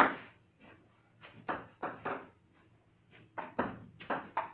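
Table tennis rally: the ball clicks sharply off the bats and table, about a dozen quick hits with a short pause just after the middle, each ringing briefly off the room's hard walls.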